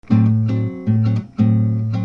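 Guitar music: chords played in a steady rhythm over a low note.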